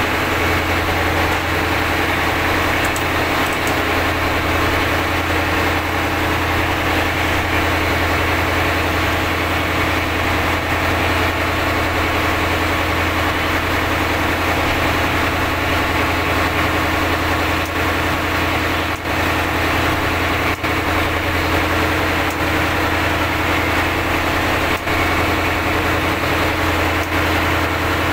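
Purse-seine fishing boat's inboard engine running steadily with a low drone, working under load as it tows another purse seiner whose engine has broken down.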